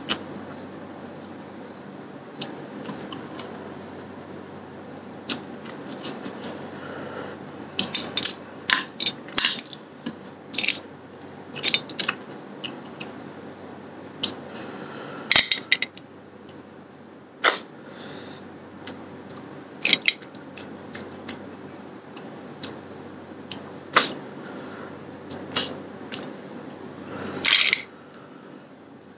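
Close-up eating sounds: a person eating snail curry by hand, with irregular sharp clicks and short sucks as snails in their shells are handled and sucked at the mouth, over a steady low background hum. The clicks bunch together about a third of the way in, with a longer suck near the end.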